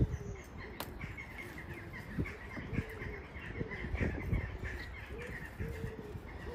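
Birds chirping and calling: a busy run of short high chirps alongside a lower call that repeats again and again, each note falling slightly. A few soft knocks of stone rubble being moved can be heard.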